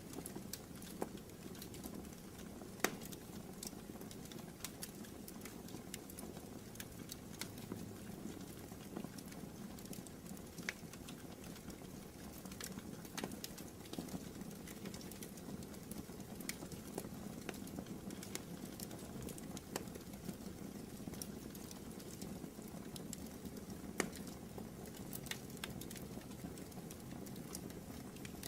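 Wood fire burning in a fireplace: irregular crackles and pops over a steady low rumble of the flames, with a sharper pop about three seconds in and another near the end.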